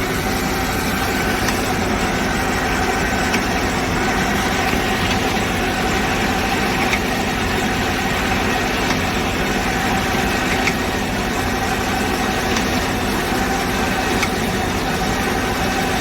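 Porsche Panamera Turbo's twin-turbo V8 idling steadily, with a faint single click about every three and a half seconds. The clicks fit the loose rack-and-pinion mounting bolts shifting as the steering wheel is turned from side to side.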